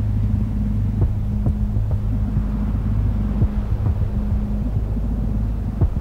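A low steady hum with soft thumps about every two seconds.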